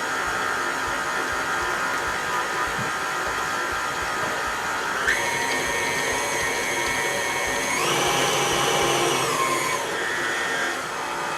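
Electric stand mixer running steadily, beating cookie butter frosting with powdered sugar and milk; its motor pitch steps up about five seconds in.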